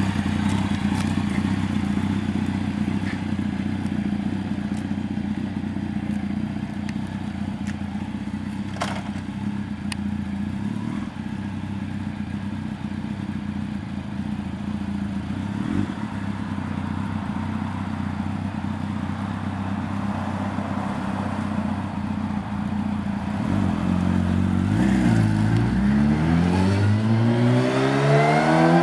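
Kawasaki ZX-10R sport bike's inline-four engine idling steadily, then revved a couple of times about twenty-four seconds in. It pulls away near the end, its pitch rising as it accelerates.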